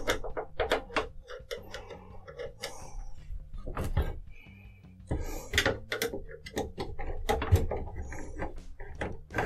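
A screwdriver turning a screw out of the metal case of a Hitachi MB-6880 computer: a run of small, irregular metallic clicks and scrapes, several a second.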